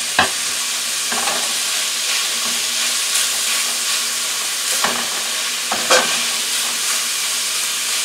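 Ground beef and onions sizzling steadily in a stainless skillet while a silicone spatula stirs and breaks up the meat. A few sharper taps and scrapes of the spatula against the pan, the loudest just after the start and about six seconds in.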